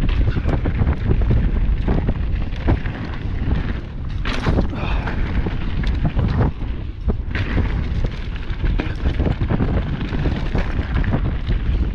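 Mountain bike descending a loose gravel trail at speed: tyres rolling over stones, with the bike knocking and rattling over bumps, under heavy wind rumble on the microphone.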